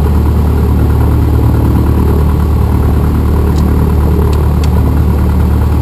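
Cessna 172M's four-cylinder Lycoming O-320 engine and propeller running steadily, heard loud from inside the cockpit, with a few faint clicks about three and a half to four and a half seconds in.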